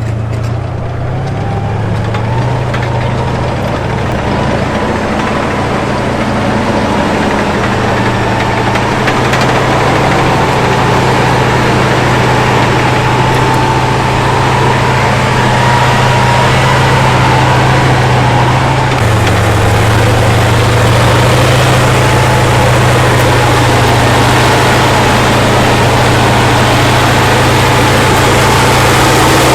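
A T-72 tank's V-12 diesel engine running steadily: a heavy low drone with a thin high whine on top, growing louder over the first several seconds.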